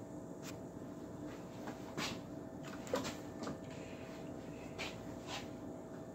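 Scattered light knocks and rustles of someone moving about and handling things, over a faint steady electrical hum.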